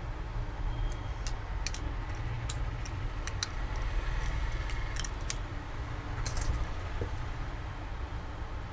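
Scattered light clicks and clinks of small repair tools and phone parts being handled, over a steady low hum.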